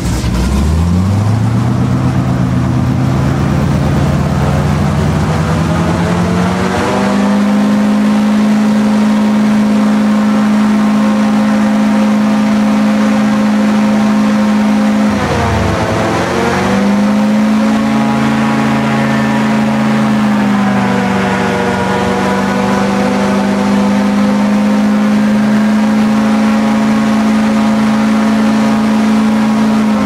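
Airboat engine and propeller running loud under way. The revs climb steadily over the first seven seconds, then hold. About fifteen seconds in they dip sharply and come back up, then hold steady again.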